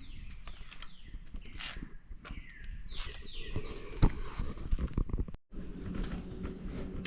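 Footsteps crunching outdoors among insects trilling and repeated short chirps that fall in pitch. About five seconds in the sound cuts out and gives way to a low steady hum.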